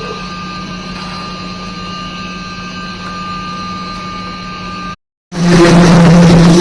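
Steady machinery engine running with a constant hum. About five seconds in it cuts out for a moment, then a louder engine hum comes in.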